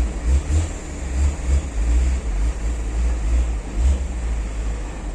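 Low, uneven rumble of truck engines during a ferry's vehicle unloading.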